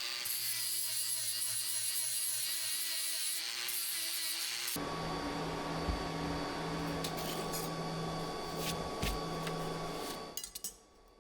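Angle grinder running against laser-cut sheet steel, grinding off the dross left by the laser cut. The grinder's high whine drops away and its note changes about five seconds in, and the grinding stops shortly before the end.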